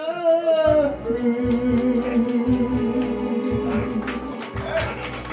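Live band music: a voice sings a wavering note, then long held notes ring over a steady beat of about two strokes a second.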